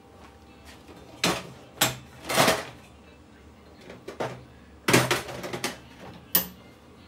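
Metal hand tools clattering and clinking in a metal toolbox as it is rummaged through: a string of sharp, irregular clanks, loudest about two and a half seconds in and again around five seconds in.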